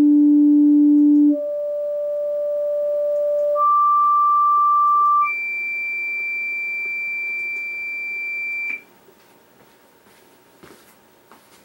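Pure sine test tones from a computer speaker, stepping up through the note D in octaves, from D4 to D7. Each is held steady for one to three and a half seconds. The tones stop about nine seconds in, leaving a few faint clicks.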